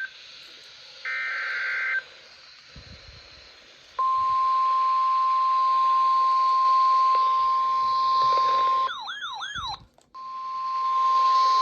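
NOAA Weather Radio emergency alert tones over radio hiss. About a second in comes a one-second burst of the SAME digital header, a harsh buzz. From about four seconds the steady single-pitch warning alarm tone sounds, broken near the end by about a second of warbling, wavering tone and a brief gap before the steady tone resumes.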